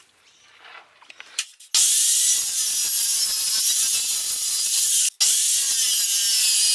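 Power drill boring holes into a wooden plank. It starts about two seconds in, stops for a moment about five seconds in, then runs again.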